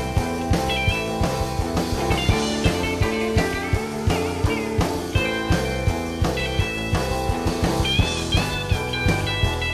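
A rock band playing an instrumental break with no vocals: an electric lead guitar plays bending-note lines over a steady drum-kit beat and bass.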